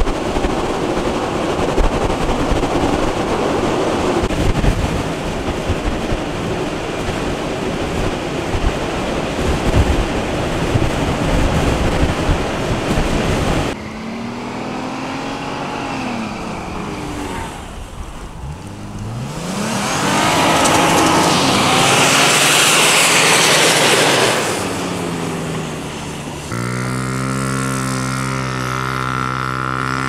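Strong blizzard wind blowing and buffeting the microphone. About halfway through it gives way to a car engine revving up and down with a loud rush of noise. Near the end a motorcycle engine runs steadily.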